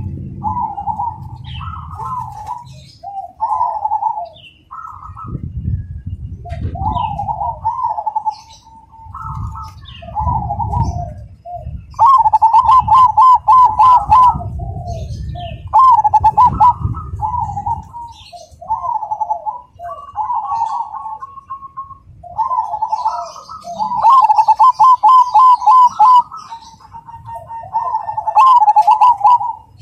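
Zebra dove (perkutut) cooing: a string of rhythmic rolling coo phrases, with the loudest runs of rapid trilled notes about 12, 24 and 28 seconds in, over a low rumble.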